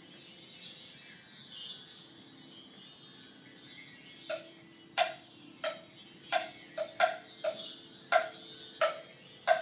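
Percussion ensemble playing: a high, shimmering metallic wash with faint sustained low notes underneath. About four seconds in, a steady run of struck, pitched mallet notes begins, roughly one and a half a second.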